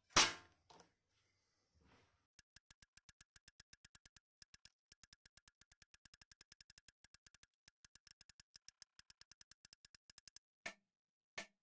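Small hammer tapping a punch on a paper template over a metal plate, marking hole centres: after one loud knock at the start comes a long, even run of light clicks, about seven a second, then near the end two harder single blows with a duller ring.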